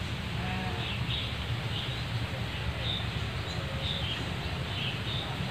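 Small birds giving scattered short, high chirps over a steady low background rumble of outdoor ambience.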